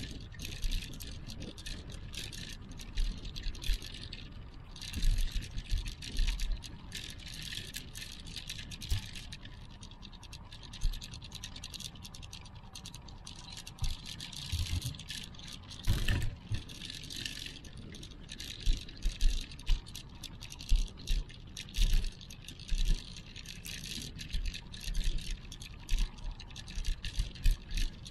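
Handling noise from a handheld action camera carried on foot: irregular low thumps and a rattling, scratchy hiss, over faint outdoor ambience.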